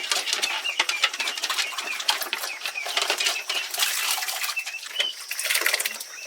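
Pigs feeding at a trough: dense, rapid clicking and chomping with many short, high squeaks throughout.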